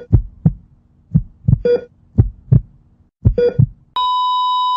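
Heartbeat sound effect: paired lub-dub thumps about once a second, with a short heart-monitor beep every couple of seconds. About four seconds in the beating stops and a loud, steady flatline tone begins.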